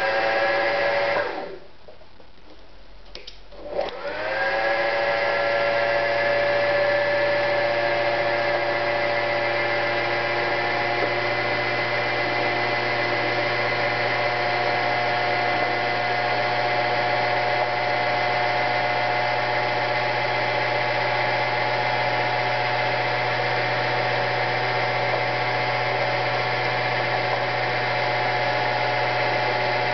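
AEG NM 376 B sewing machine's electric motor running. It stops a little over a second in, starts again about four seconds in with a rising whine as it comes up to speed, then runs at a steady speed.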